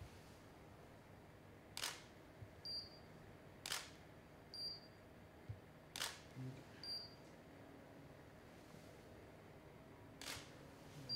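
DSLR camera shutter firing four times, a couple of seconds apart and with a longer gap before the last shot. A short high beep follows about a second after each shot.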